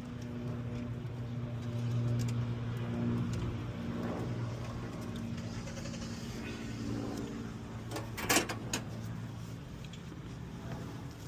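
Steady mechanical hum of a running machine or engine, with a short cluster of sharp metallic knocks about eight seconds in.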